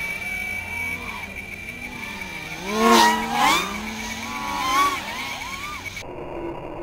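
Racing quadcopters' brushless motors whining, their pitch gliding up and down with the throttle as they fly past. The loudest passes come about three seconds in, twice in quick succession, and again near five seconds.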